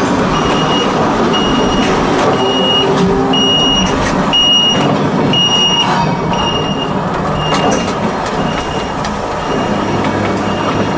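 Volk's Electric Railway car running along the track, its electric motor and wheels rumbling steadily. Over it an electronic warning beeper sounds about every 0.7 seconds, loudest in the middle and fading toward the end.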